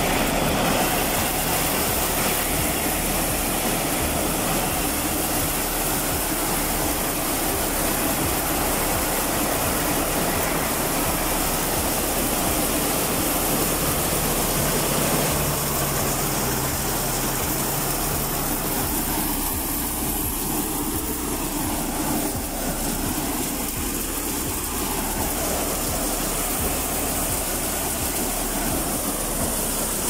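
Mobile maize sheller (corn thresher) running steadily under load, shelling cobs, with husks and chaff blowing out of its discharge chute. Its steady, loud machine noise briefly carries a low hum partway through.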